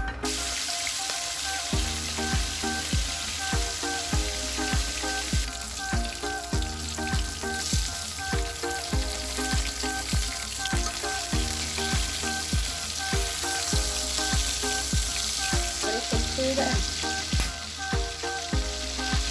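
Small whole tamban sardines frying in hot oil in a wok, a steady sizzle, over background music with a regular beat.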